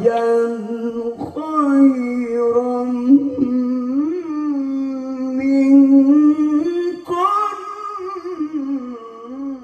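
A man's voice reciting the Quran in a long, melodic, ornamented style, amplified through a stage sound system. It comes in three long held phrases, with short breaths about a second in and about seven seconds in, and the last phrase ends at the very end.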